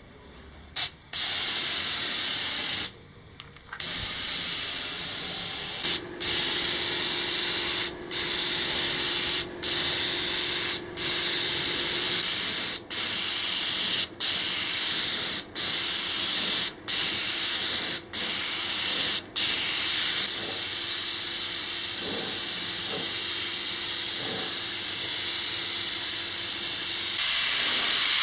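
Gravity-feed compressed-air paint spray gun hissing as it sprays paint. It goes in repeated bursts about a second long with short breaks as the trigger is pulled and released for each pass, then one long continuous spray over the last third.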